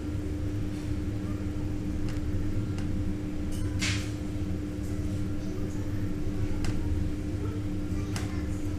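Steady low mechanical hum with a constant tone. Over it come a few soft taps and one short scrape about four seconds in, as thin raw potato slices are handled and set down on a cutting board.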